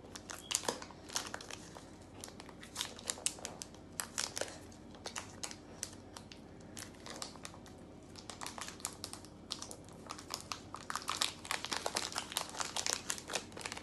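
Small clear plastic packet crinkling and crackling in the hands as it is handled and opened. The crackles come in irregular clusters and grow busier near the end.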